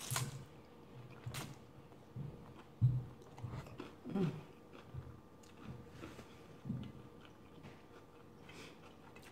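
Close-miked mouth sounds of a person eating garlic noodles: irregular wet chewing with a couple of sharp smacking clicks early on, and a short voiced murmur about four seconds in, tapering to quieter chewing near the end.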